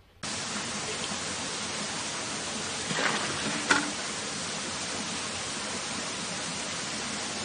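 Steady splashing of water pouring from a spout. About three seconds in there is a short whoosh, then a sharp click.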